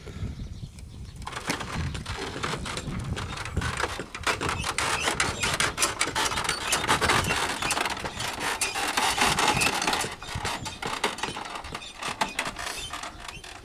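Camel-drawn cart with a metal water tank rattling and clanking as it rolls, a dense run of clinks and knocks. It starts about a second in, is loudest in the middle and eases near the end.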